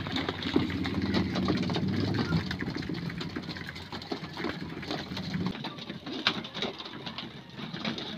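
Young racing pigeons pecking grain from feeding troughs: a quick, irregular scatter of small clicks and taps. A low drone runs underneath and cuts off about five and a half seconds in.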